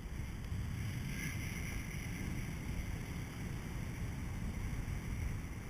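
Steady wind noise from airflow buffeting the camera microphone while flying under a tandem paraglider, strongest in the low range.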